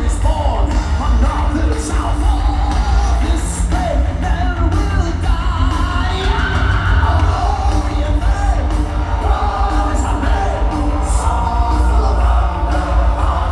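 Heavy metal band playing live in an arena, with singing and yelling voices over a heavy, booming bass.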